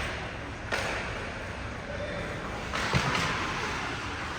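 Ice hockey play echoing in an arena: a sharp crack less than a second in and another knock with a dull thud about three seconds in, each ringing off briefly, over steady rink noise.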